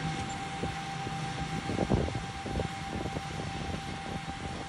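Tractor pulling a multi-row planter across a field: a steady drone of engine and machinery with a constant high whine, and irregular low rumbling.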